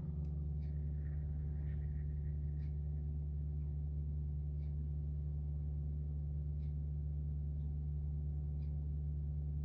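Mitsubishi EX-202L ventilation fan running steadily with an even, low motor hum, and a faint tick about every two seconds.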